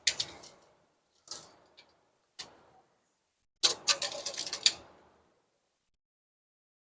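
Sharp knocks and clatters of hard objects being handled, a few single ones, then a quick run of clicks about four seconds in.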